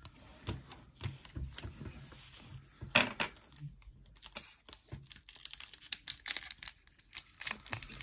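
Pokémon trading cards being handled and set down on a wooden table: a run of light clicks and taps, with one sharper snap about three seconds in. Toward the end comes the crisp crinkle of a foil booster pack being handled.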